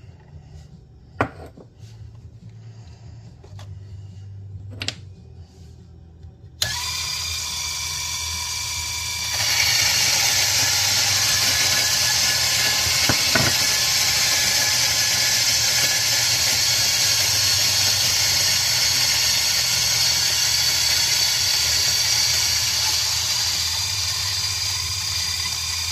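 A few faint clicks, then about six seconds in the Zerno Z1 coffee grinder's motor starts with a steady whine. A few seconds later it grows louder as the dose of coffee beans reaches the burrs and is ground, and the grinding runs on steadily, easing slightly near the end.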